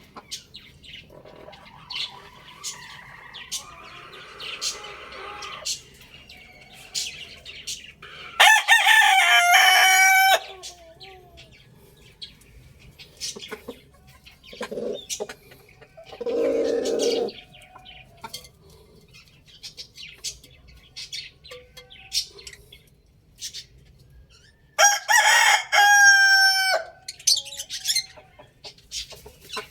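A rooster crowing twice, once about eight seconds in and again near the end, each crow loud and about two seconds long. Between the crows come softer clucking and chirping, with a lower, shorter call about halfway through.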